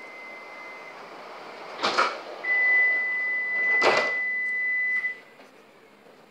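Alstom Citadis tram's doors closing: a steady, high door-closing warning tone sounds for about three seconds while two short rushes of noise from the door mechanism come about two seconds apart as the doors swing shut.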